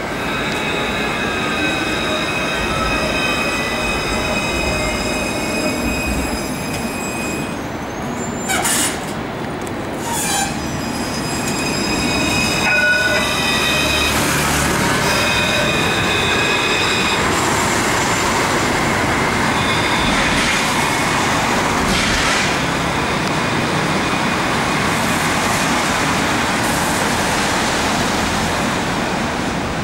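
Electric trams at a street stop: a high whine of several steady tones that glide in pitch in places, with steel wheels squealing on the rails. Two sharp knocks come about nine and ten seconds in.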